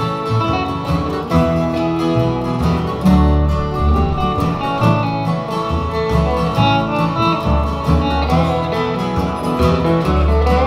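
Small acoustic country band playing an instrumental break with no singing: acoustic guitars, an electric guitar and a plucked upright bass.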